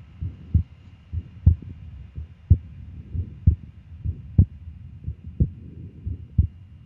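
Recorded heart sounds of a ventricular septal defect: a harsh holosystolic murmur, a blowing noise that fills all of systole between the first and second heart sounds, from blood shunting from the left ventricle to the right. The beats come about once a second.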